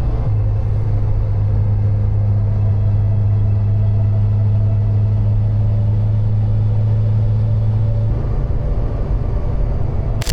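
Subaru WRX driving at a steady cruise, its engine and road noise making a constant low drone. The drone shifts in pitch about eight seconds in.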